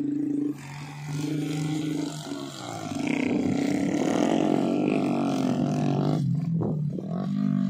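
Homemade trail motorbike engines running and revving up and down across rough ground, one of them carrying a sack of grain. The engine note dips briefly about six seconds in.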